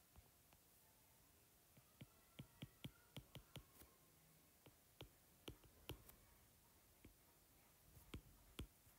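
Faint clicks and taps of a stylus tip on a tablet's glass screen during handwriting, in a quick run between about two and six seconds in and again near the end.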